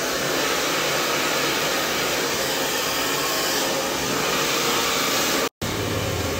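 Handheld hair dryer blowing steadily while it is worked through damp hair with a round brush. The sound breaks off for an instant about five and a half seconds in, then runs on with a lower hum underneath.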